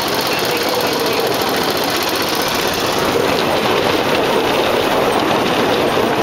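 Small 6-horsepower gasoline engine of a bamboo train (norry) running steadily under load while the platform rolls along the rails.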